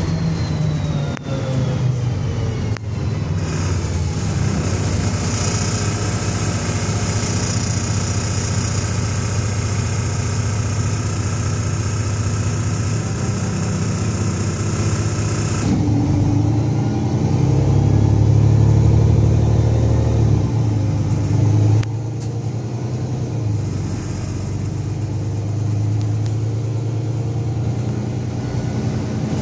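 The Cummins diesel of a VMZ-4252 bus heard from inside the passenger cabin while driving: a loud, steady engine rumble with a falling whine at the start as the bus slows. A high steady whine comes in a few seconds in and stops suddenly about halfway. Then the engine grows louder as the bus pulls away, easing off a few seconds later.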